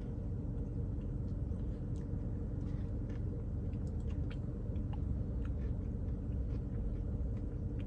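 Quiet chewing of a mouthful of Blizzard ice cream with brownie and walnut pieces, with scattered small clicks, over a steady low rumble.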